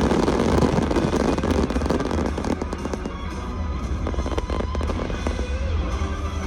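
Fireworks display: dense crackling and popping of bursting shells, thinning out after about two and a half seconds, with music playing along.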